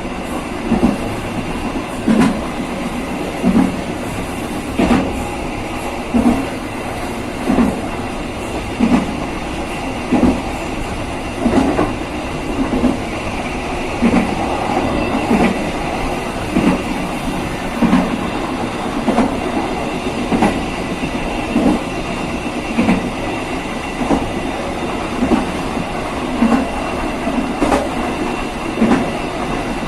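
KA Serayu passenger train running on the rails: a steady rumble with a clickety-clack of wheels over rail joints about every second and a third.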